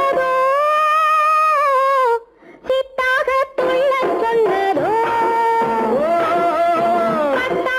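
Old Tamil film song: a woman's voice holds one long sung note, which breaks off about two seconds in; after a brief pause the song resumes with a moving melody over the orchestra.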